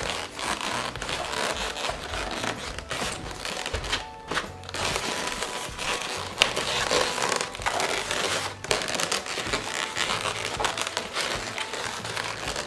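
Inflated latex balloons, 5-inch rounds and 260 twisting balloons, rubbing and squeaking against each other and against hands as they are pushed and squeezed into place.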